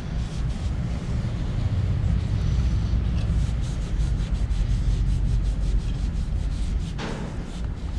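Cloth rag rubbing and wiping oil off a motorcycle's engine casing, over a steady low rumble, with a short scrape about seven seconds in.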